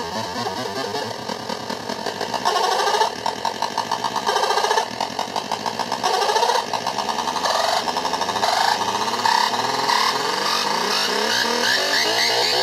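Olegtron 4060 CMOS noise box, a CD4060 oscillator-divider, putting out a harsh, rapidly pulsing buzz whose pitch and pattern jump and sweep as its knobs are turned, louder in stretches. The output's ring is patched back to the tip through a small capacitor, doubling the sound slightly differently.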